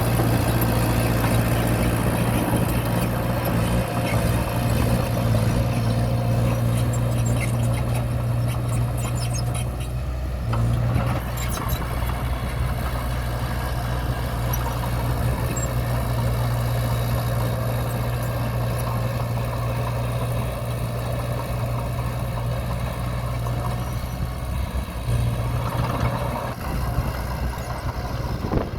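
Diesel engine of heavy earthmoving equipment running steadily, with scattered light ticks. The engine note eases briefly about ten seconds in and again near the end.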